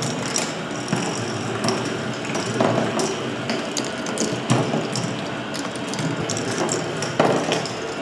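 K'NEX ball machine running: plastic gears and moving parts clattering with dense, irregular clicking, and a few louder knocks of plastic balls along the track.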